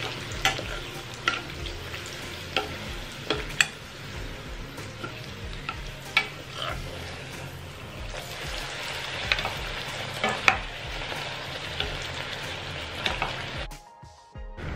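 Aloo puri deep-frying in hot oil in a wok: a steady sizzle, with scattered sharp clicks as a metal spoon presses and turns the puri against the pan. The sound drops out briefly near the end.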